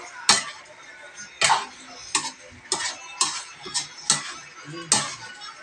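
Metal spatula knocking and scraping against a stainless steel wok while stirring chicken pieces in a thick sauce, with a sharp clack every half second to second, about eight in all.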